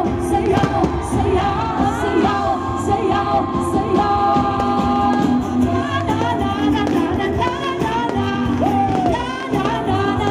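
Music with singing.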